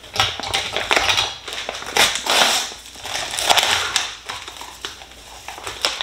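Plastic packaging of an instant yakisoba noodle tray crinkling and crackling as the film is torn open and the packets are pulled out. It comes in several bursts and is quieter near the end.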